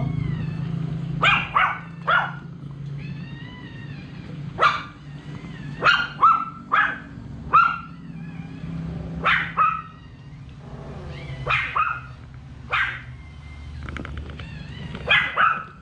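A dog barking in short, sharp barks, about a dozen at irregular intervals, over a steady low hum.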